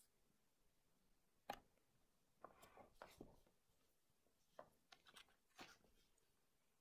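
Faint knocks and scratchy rustles of a cat flopping onto a wooden floor and rolling on its side, its body and paws brushing the floor and a person's trousers: one sharp knock about a second and a half in, then scattered rustling and light clicks.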